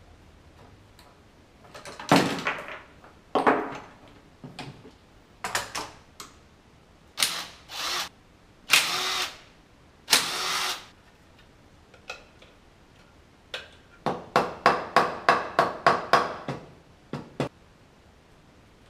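Cordless drill-driver running in short bursts, backing screws out of a Honda Cub engine's side cover. Near the end comes a quick run of about ten short pulses.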